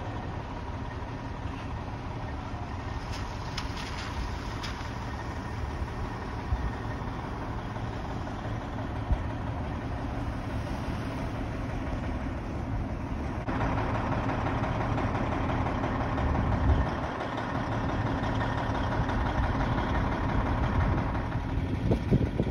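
Fire engines' engines running steadily, a continuous low rumble. About thirteen seconds in, the sound grows louder, with more hiss added.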